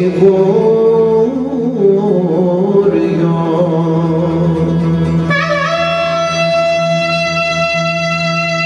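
Greek folk ensemble music with clarinet, kanonaki (qanun) and lute. A winding, ornamented melody runs over a steady low note, and about five seconds in the clarinet holds one long high note.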